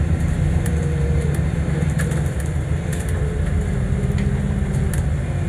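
Alexander Dennis Enviro400 MMC double-decker bus running, heard from inside the passenger saloon: a steady low engine drone, with scattered light clicks and rattles from the interior fittings.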